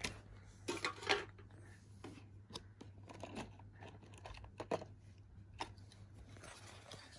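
Clear plastic packaging of a boxed HO scale model railway carriage rustling and clicking as it is handled and slid out of its box, with a cluster of crackly handling sounds about a second in and lighter clicks after.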